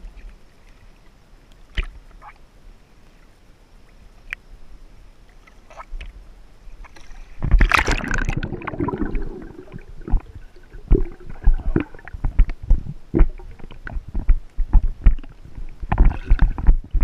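Lake water at the surface: faint water sounds with a few sharp clicks. About seven and a half seconds in, the camera goes under the water with a sudden loud splash. After that come muffled underwater sloshing and bubbling with irregular heavy thumps of water against the camera.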